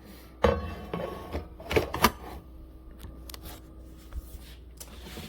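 Clicks and knocks of coffee maker parts being handled: a sharp knock about half a second in, a quick run of clicks about two seconds in, then lighter taps.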